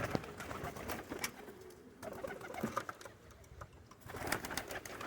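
Pigeons in a loft cooing softly, with scattered light clicks and knocks.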